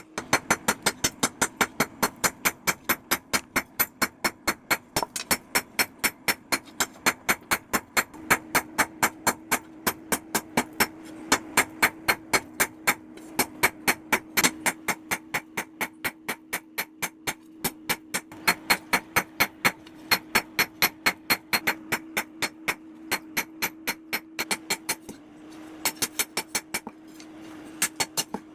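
Hand hammer striking hot steel on an anvil in quick, rhythmic forging blows, about three to four a second, each blow ringing briefly. The hammering pauses briefly a few times near the end.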